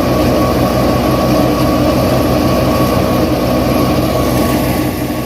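A vehicle engine running steadily with a regular low throb, fading out near the end.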